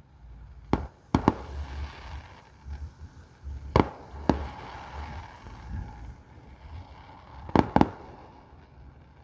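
Fireworks bursting in the air: seven sharp bangs in three clusters, about a second in, near four seconds in and near eight seconds in, with crackling between them.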